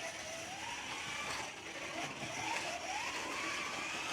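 Ninco Lotus Exige GTS slot car lapping the track, its small electric motor whining and rising and falling in pitch several times as it speeds up on the straights and slows for the corners.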